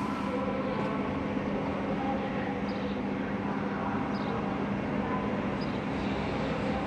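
EJ575 electric multiple unit running in: a steady rolling rumble with a constant low hum, and a few faint short high squeaks.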